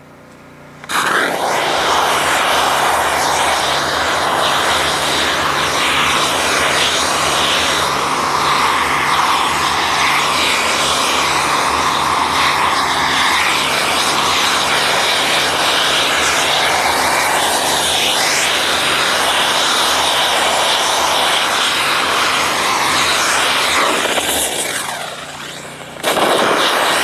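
Steam weeder spraying hot water at 120 °C and 400 PSI through a hooded wand onto weeds: a loud, steady hiss over the hum of the unit's engine-driven pump. The hiss eases off near the end, then comes back just before it stops.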